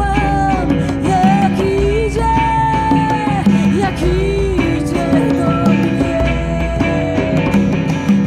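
A woman singing a song live with a band of acoustic guitar, electric guitar and bass guitar. Her voice holds long notes over a steady beat.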